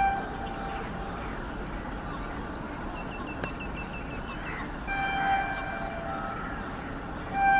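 Horn of an approaching train's locomotive, sounding a brief blast at the start, a blast of a little over a second about five seconds in, and another starting near the end, over a steady low rumble. A bird chirps about twice a second throughout, with a quick run of falling chirps around three seconds in.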